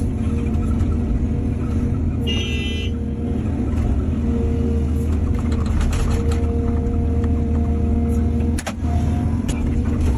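Excavator diesel engine running steadily with a hydraulic whine. A brief high-pitched squeal comes about two seconds in, and a sharp knock near the end.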